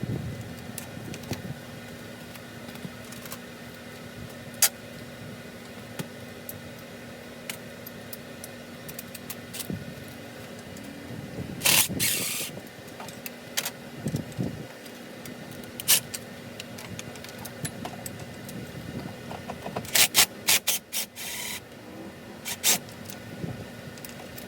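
Metal hand tools and engine parts clinking and scraping during an engine teardown: scattered sharp clicks, with louder ringing clanks about halfway through and a cluster near the end, over a steady low hum.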